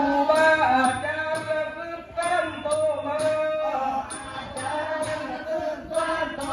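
A male nang talung performer chanting Southern Thai verse (khap klon) in a long melodic line, over ensemble percussion keeping a steady beat of about two strokes a second.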